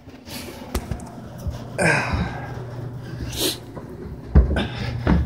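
Handling noises: scattered knocks and rustling, with a loud thump about four and a half seconds in and another just before the end, over a steady low hum.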